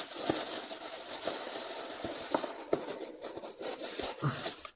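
Scraping and rustling handling noise, with a few soft knocks, that cuts off suddenly near the end.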